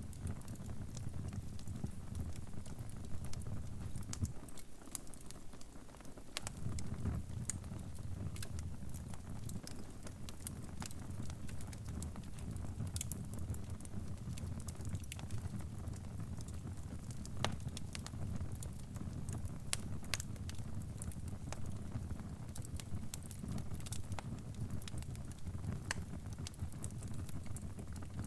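Crackling wood fire: irregular sharp pops and snaps over a low, steady rumble of flames. The rumble drops away briefly about five seconds in.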